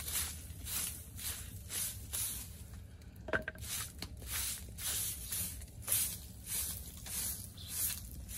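Handmade twig broom sweeping dry, dusty dirt ground: quick swishing strokes, about two a second, with a short click a little past the middle.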